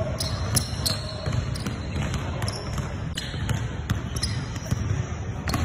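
A basketball dribbled on a hardwood gym floor, its bounces coming in a quick, steady rhythm of about two to three a second.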